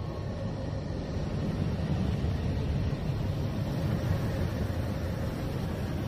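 The 'sound of Neptune' attributed to NASA: spacecraft data converted into audio, heard as a steady low rumble of noise with a faint steady hum above it, a little louder in the middle.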